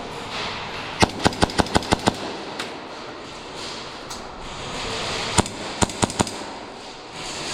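Airsoft gun firing. A rapid string of about eight shots comes about a second in; about five and a half seconds in there is a single shot, followed by a quick burst of four more.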